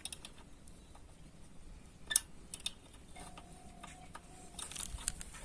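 A few scattered light clicks and taps from hand work on the monoblock motor during reassembly, the loudest about two seconds in. A faint steady tone runs for about a second and a half near the end.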